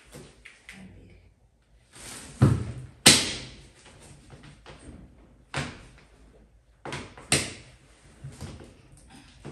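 A series of sharp bangs and knocks. Two loud ones come about two and a half and three seconds in, the second the loudest, and more follow about five and a half and seven seconds in, with light clatter between.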